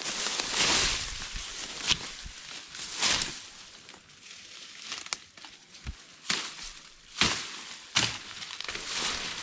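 Irregular rustling and crunching of plant material, with sharp crackles every second or so.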